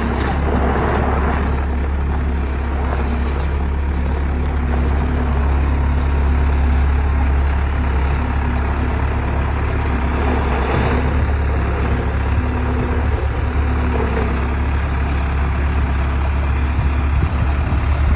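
Skid steer loader's engine running steadily with a low drone, rising slightly and falling back now and then.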